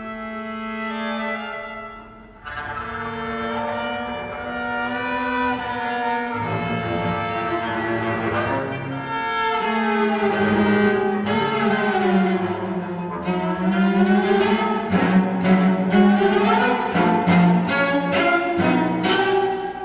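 String trio of violin, cello and double bass playing a contemporary piece with the bow: held notes, several sliding in pitch, growing louder toward the end with a run of short, quickly repeated strokes.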